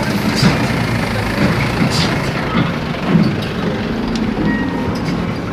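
Heavy diesel earthmoving machinery running steadily, an excavator and dump truck at work, with a couple of brief knocks.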